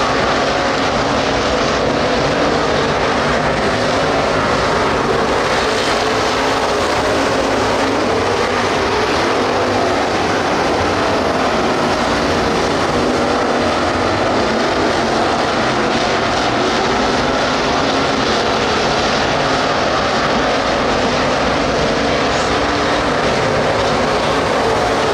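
A field of dirt-track street stock race cars running at racing speed around the oval, their engines making a loud, steady, unbroken drone.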